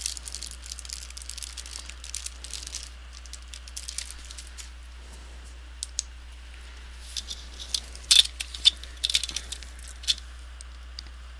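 Clear plastic film crinkling as it is handled. Then a run of sharp plastic clicks and cracks about eight to ten seconds in as a Samsung laptop's plastic screen bezel is pressed and snapped back into place on the lid.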